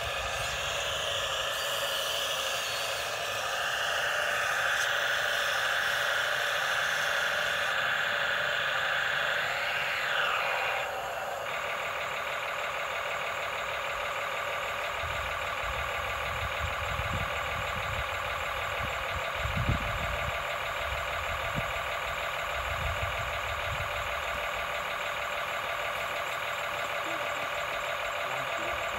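Huina RC excavator's electric gear motors whining as the boom and cab move, with a pitch glide about ten seconds in. They give way to a steady electric hum, broken by a few low thumps in the second half.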